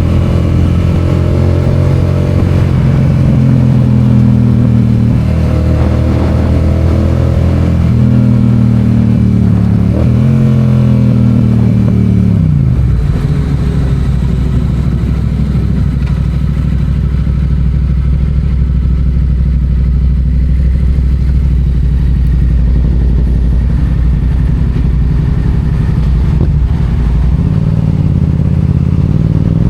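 Yamaha FZ-07's parallel-twin engine accelerating through the gears: the pitch climbs and drops back with each of about three upshifts, then falls away about twelve seconds in and settles to a steady low note, starting to rise again at the very end.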